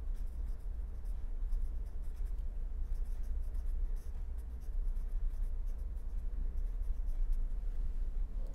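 Pen writing on paper: a run of short, faint scratching strokes as words are handwritten, over a steady low hum.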